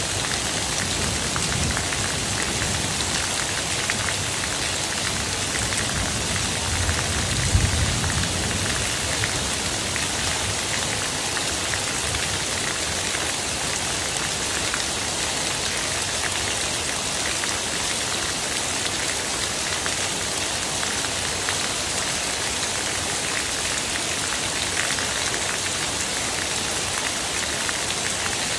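Heavy rain falling steadily on a paved yard and foliage, an even hiss, with a stream of roof runoff splashing onto the pavement. A low rumble underneath fades out in roughly the first eight seconds.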